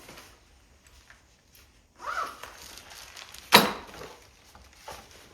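Small hand tools and packaging being handled: faint rustling, a short scrape about two seconds in, and a single sharp knock about three and a half seconds in.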